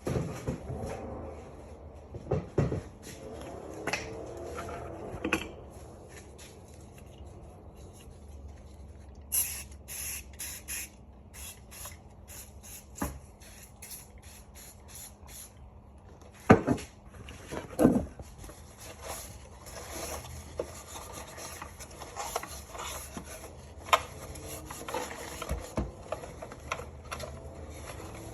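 Rubbing and wiping at a surface with a rag, with a run of about a dozen short spurts from a spray bottle of cleaner midway, and a few knocks as the parts are handled.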